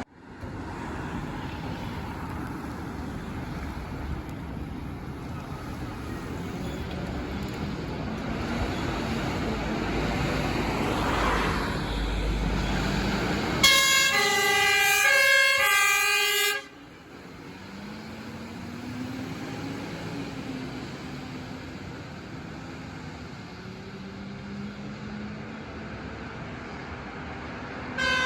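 A heavy fire engine's motor and tyres grow louder as it approaches and passes. Then an alternating two-tone siren horn sounds loudly for about three seconds and cuts off abruptly, leaving quieter engine noise.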